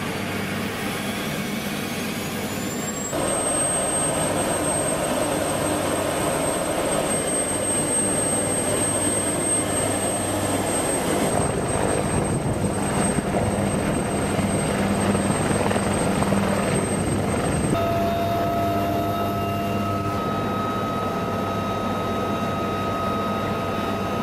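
Helicopter turbine engines running: a steady rush with a high whine that rises in pitch over the first three seconds and then holds. The sound changes abruptly about three, eleven and eighteen seconds in.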